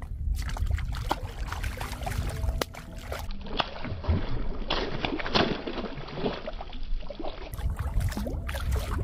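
A hooked rohu thrashing and splashing in shallow water as it is pulled in and landed by hand, with irregular water sloshing that is heaviest about halfway through.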